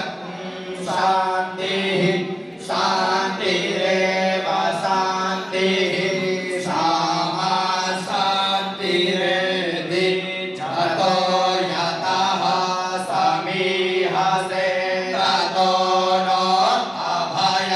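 Hindu priests chanting Sanskrit mantras in continuous phrases of a few seconds each, recited as part of the temple consecration ritual.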